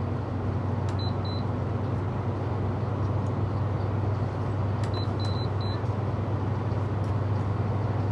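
LG 6000 BTU window air conditioner running steadily, its compressor and fan giving a constant low hum with air rush; the compressor is still on and has not cycled off. A few short high beeps sound over it, twice about a second in and three times around five seconds in.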